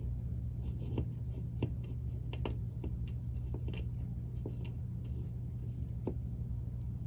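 Pipe cleaner scrubbing inside the brass sleeve bearing of a Sony TC-K65 capstan motor, cleaning out old grease: faint, irregular scratchy clicks over a steady low hum.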